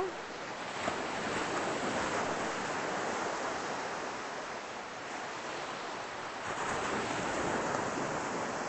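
Ocean surf washing up the beach: a steady rush of breaking waves that swells about a second in and again after about six seconds.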